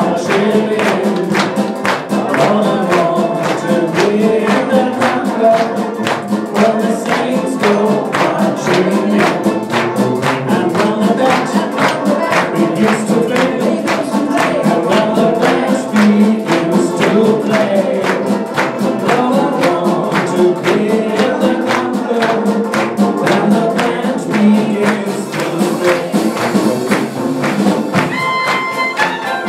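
Trad jazz band playing, with tuba and drums keeping a steady beat while voices sing along. Near the end the clarinet and trumpet come in.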